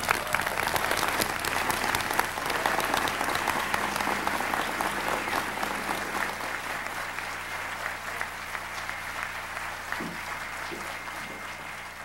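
Audience applauding: many hands clapping together, dying away slowly over the last few seconds.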